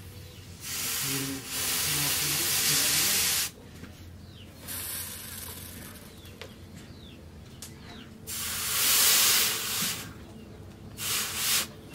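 Hot forged knife blade of plough-disc steel quenched in a trough of water, hissing in bursts as it is dipped: a long hiss of about three seconds about a second in, another of about two seconds past the middle, and a short one near the end.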